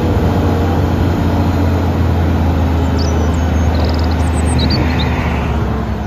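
Eight-wheel tipper truck's diesel engine running steadily while the hydraulic ram raises the tipper body. A few birds chirp around the middle.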